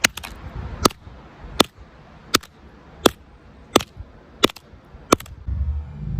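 A hammer striking an iPhone 7 in a steady rhythm: about eight sharp blows, roughly three every two seconds, denting the phone and breaking its screen loose. A low rumble comes in near the end.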